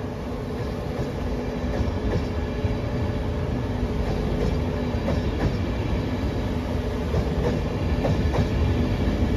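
LNER Intercity 225 train of Mark 4 coaches rolling along the platform as it pulls out, with a steady low rumble and hum and wheels clacking over rail joints. It grows steadily louder as it gathers speed.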